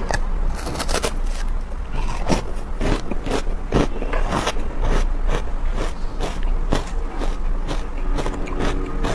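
Close, crisp crunching of frozen matcha ice being bitten and chewed, in many quick irregular crunches, with fingers scraping and breaking pieces off the icy block, over a low steady hum.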